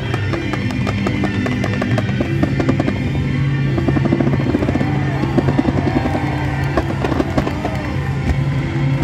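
Music playing, with the rapid crackle and pops of ground fireworks spinning on a pole-mounted set piece running underneath it.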